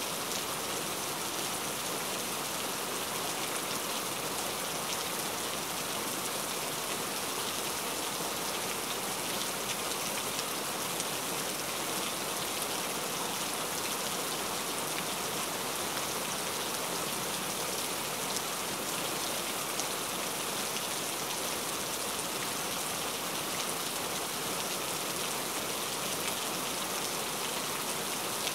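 Steady rain falling, an even hiss of many small drops that keeps up without a break.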